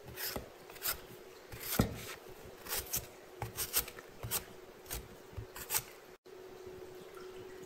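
Paring knife shaving the rough skin off a raw taro root, a run of short, irregular scraping strokes. The scraping stops about six seconds in, leaving a faint steady hum.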